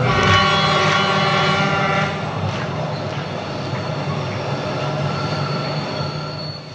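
Recorded train sound effect played over the stage sound system: a loud many-toned blast at the start fades over about two seconds, over a steady low rumble, with a thin high whistle near the end.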